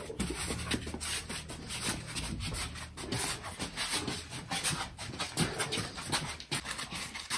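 A heavy stone kitchen counter unit being manhandled: irregular scraping, knocking and shuffling, with the straining breaths and grunts of the people lifting it.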